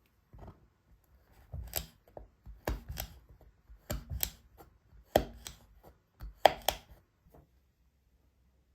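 Knife chopping on a cutting board: a series of sharp strikes, often two in quick succession, stopping about seven seconds in.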